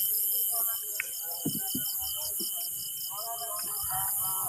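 Crickets chirping in a fast, even pulsing rhythm over a steady high insect drone, with a few knocks of gear being handled and faint voices about three seconds in.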